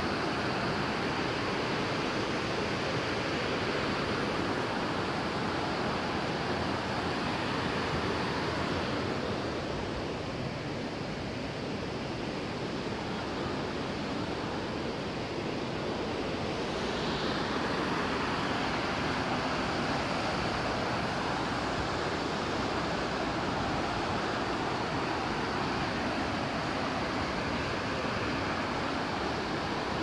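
Steady rushing of a waterfall, an even wash of falling water, a little softer for a few seconds midway.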